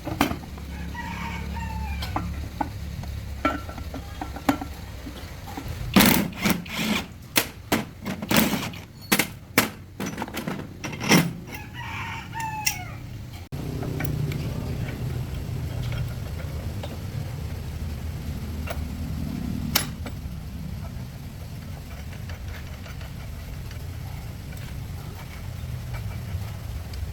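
A bird calling twice with a gliding pitch, once about a second in and again about twelve seconds in. Between the two calls comes a run of sharp knocks. After about thirteen seconds there is a steady low hum.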